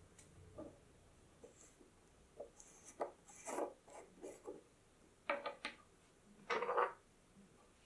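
Black plastic screw cap being twisted off a small glass jar of vanilla bean paste: a run of short rasping scrapes from the threads, then two louder clacks and scrapes near the end as the lid and jar are set on a wooden tabletop.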